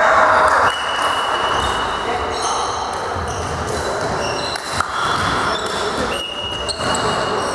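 Indoor volleyball match: the ball thudding, voices, and several high squeaks, all echoing in a large sports hall.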